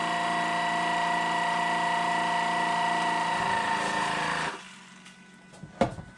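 Countertop vacuum sealer's pump running steadily in its gentle mode for a bag holding liquid, then cutting off about four and a half seconds in. A sharp click follows about a second later.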